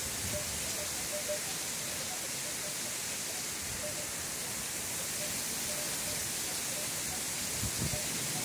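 Heavy rain falling steadily, an even hiss, with a few low rumbles near the end.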